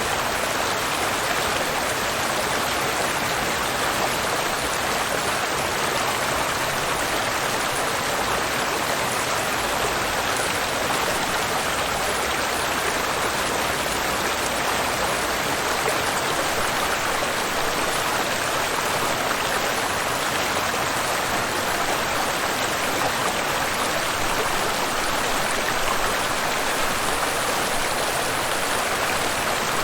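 Waterfall and river water rushing steadily, a constant, even roar of falling and flowing water.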